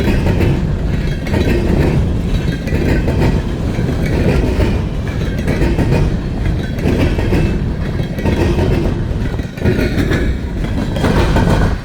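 Norfolk Southern freight train cars rolling past, a loud, steady noise of wheels on the rails.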